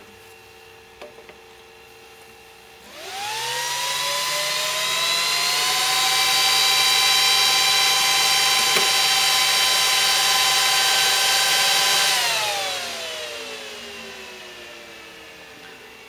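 Temperature-controlled cooling fans in a 2U rackmount server spinning up to full speed, about three seconds in, as a loud rising whine with a rushing of air. This is the motherboard's response to one fan being held stopped to simulate a failure: it detects the stalled fan and raises the other fans' speed. The whine holds steady, then falls away over the last few seconds as the fans wind back down.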